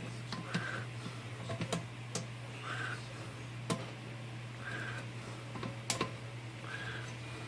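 Scattered light metallic clicks and taps from working on a Royal 10 typewriter's carriage rails and frame, with slow, raspy bronchitis breathing about every two seconds over a steady low hum.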